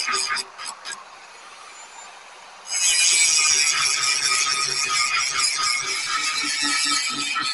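Grinding on car leaf-spring steel: short, uneven bursts of grinding stop about a second in. From about three seconds in there is a steady, loud, high-pitched grind.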